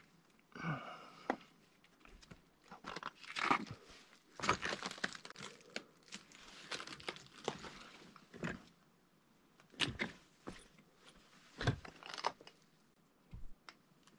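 Footsteps crunching and scraping over loose lava-rock rubble, with irregular clicks and clatters of stone and a hiking pole; several heavier steps stand out, the loudest a few seconds in and again near the end.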